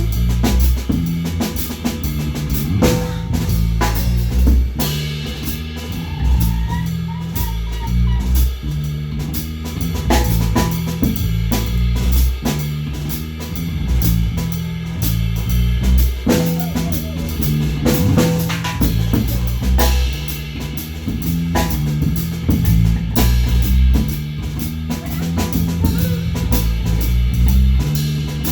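Live rock band playing an instrumental passage: drum kit with bass drum and rimshots, bass and electric guitar.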